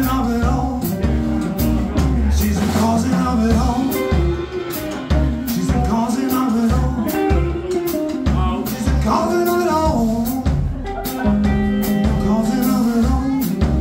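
Live Chicago blues band: a Fender electric guitar, an upright double bass and a drum kit playing together over a steady beat, the guitar playing bending lead lines.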